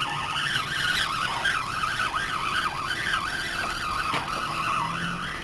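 Spinning reel being cranked to bring in a hooked crappie: a whirring whine that wavers up and down in pitch as the handle turns.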